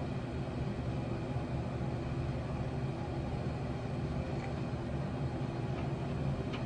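A steady low mechanical hum, holding an even level throughout.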